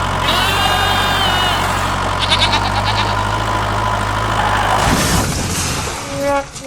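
Engine idling steadily, with short high chirps over it, then cutting off about five seconds in; a brass-like horn note begins near the end.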